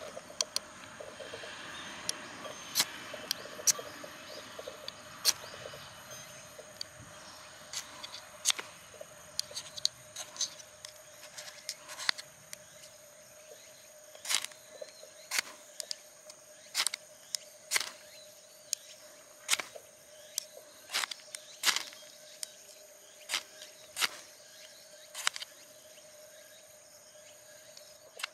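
A steel ruler's edge scraped down a ferrocerium fire-starter rod again and again, as a stand-in striker to throw sparks. It makes short, sharp scrapes at uneven intervals of about a second or two.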